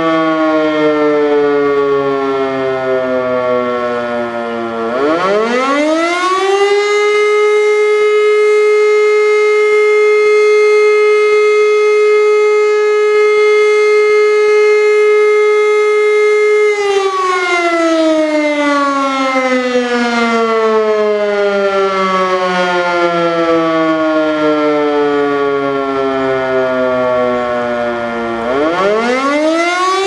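E57 electromechanical siren sounding the German fire-alarm signal, a tone broken by pauses. It winds down with falling pitch, spins up about five seconds in to a loud steady tone that holds for about ten seconds, then winds down slowly again with falling pitch and starts rising once more near the end.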